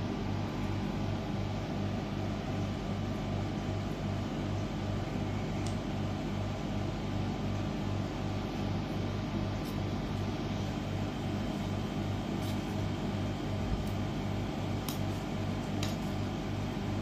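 A steady electric appliance hum with a low throb that pulses about two to three times a second, and a few faint clicks in the second half.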